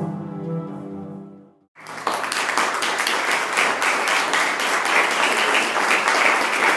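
Electronic music with sustained pitched tones fades out, and after a moment of silence about two seconds in, an audience starts applauding steadily.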